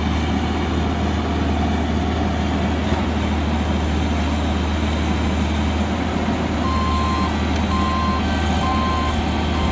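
Excavator's diesel engine running steadily under load as the machine tracks out of a hole, its left track dragging and short of power. About two-thirds of the way in, a travel alarm starts beeping, about one beep a second.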